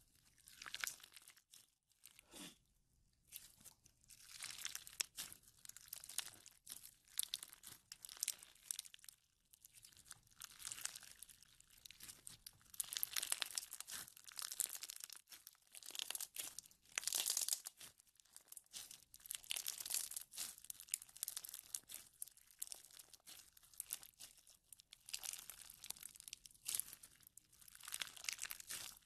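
Clear slime packed with clear beads being squeezed and stretched by hand, giving irregular crunchy crackling and popping in clusters with short pauses.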